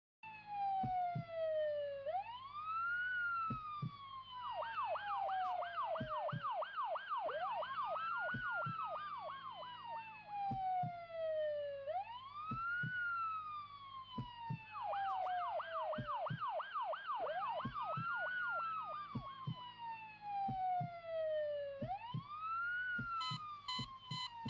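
Emergency-vehicle siren sounding in a long wail, rising quickly and falling slowly about every five seconds, switching twice to a fast yelp of quick up-and-down sweeps. A low steady hum and scattered short low thuds sit under it.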